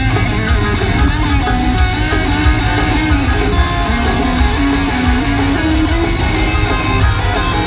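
Live rock electric guitar solo, a melodic line of held notes moving in steps, over bass and drums. It comes through a loud arena PA, heard from among the audience.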